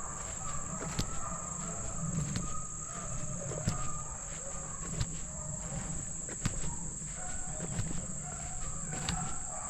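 Steady high-pitched drone of insects, crickets or katydids, with scattered sharp crackles like steps in dry brush.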